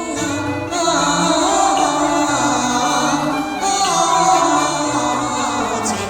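Chinese opera-style song accompaniment playing a melodic passage.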